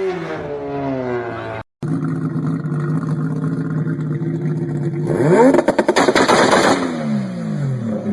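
Mazda RX-7 rotary engine revving with a rapid rattle of anti-lag pops and crackles from the exhaust. The revs fall away, the sound cuts out briefly about two seconds in, then the engine holds a steady note with fast popping. About five seconds in it blips up and back down in a burst of dense crackles.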